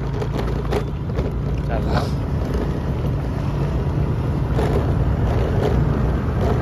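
Motorbike engine running steadily while riding, with wind rushing over the microphone.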